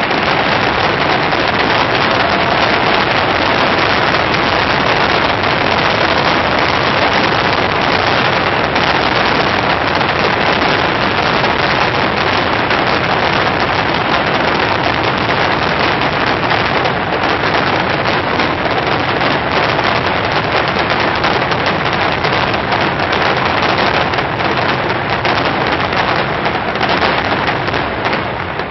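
Fireworks finale: a loud, continuous barrage of shell bursts and dense crackling, thinning out to separate bangs near the end.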